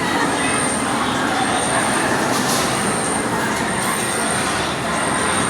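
Steady, loud running noise of a vehicle in motion: a constant rumble and hiss with a faint high whine coming and going.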